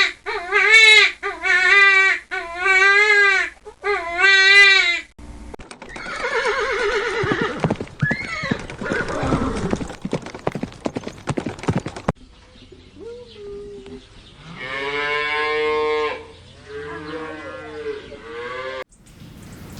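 Calls of farm animals in three separate clips cut one after another: four short, wavering calls, then a longer, noisier call with falling sweeps, then two drawn-out, wavering calls near the end.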